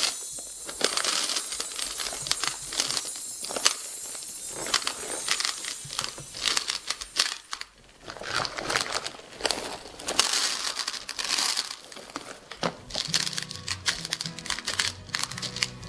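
Hard-shelled M&M's candies pouring out of a crinkling foil bag and clattering onto a plastic plate, then pushed and shuffled around by hand in many small clicks. Music comes in about three-quarters of the way through.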